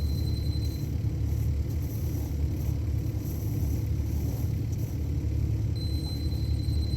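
CAT 308 mini excavator's diesel engine running steadily, a continuous low rumble. A thin high whine sounds over it in the first second and again near the end.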